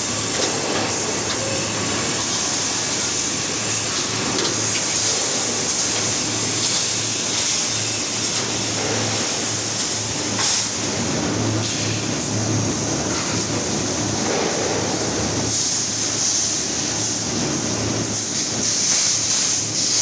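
Steel rolling mill machinery at the shear and bar cooling bed running: a steady industrial din with a low hum under a hiss, and a few faint clicks of steel bars.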